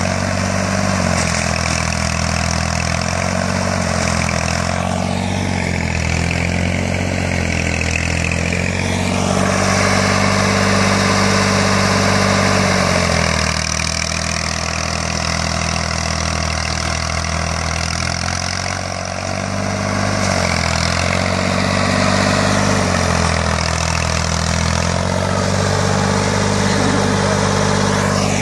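Small farm tractor engine running hard under load, its speed rising and falling several times as the tractor pulls a log-lifting rope through mud.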